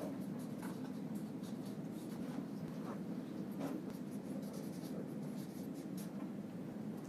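Hand-writing on a surface: short, irregular scratchy strokes of a writing implement, over a steady low background hum.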